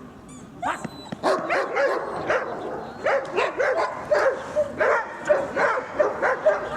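A dog barking over and over in quick, even barks, about two to three a second, starting about half a second in.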